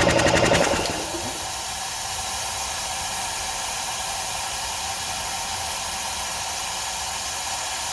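Craftsman 12-gallon air compressor's pump running with a rapid pulsing chug, cutting off about a second in as it reaches pressure. It is followed by a steady hiss of compressed air escaping: the leak from the small nipple under the tank output, which starts once the tank gets up to pressure.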